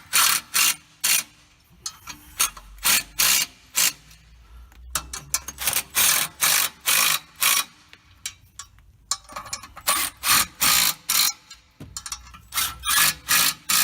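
Hammer striking metal clutch parts to seat the springs, sharp blows in runs of about two a second with short pauses between the runs.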